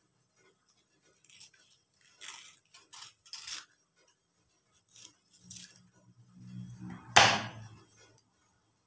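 Fresh banana leaf rustling and crackling as it is folded and trimmed with scissors: a series of short crisp snips and crackles, with one louder sharp crackle about seven seconds in.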